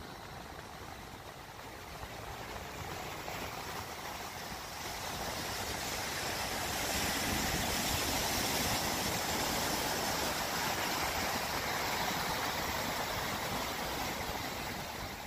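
Ocean surf breaking and washing up on a sandy beach, a steady rushing that grows somewhat louder about five seconds in.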